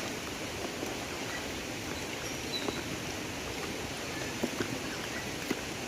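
Steady rushing of river water, with a few faint clicks over it.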